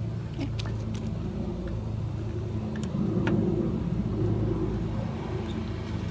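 A motor vehicle engine running steadily at idle, a low even hum, with a few light clicks and taps over it.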